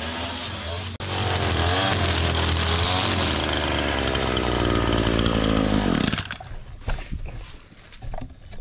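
Echo two-stroke string trimmer running steadily at high revs. About six seconds in the throttle is let off and the engine sound falls in pitch and dies away, leaving a few faint knocks.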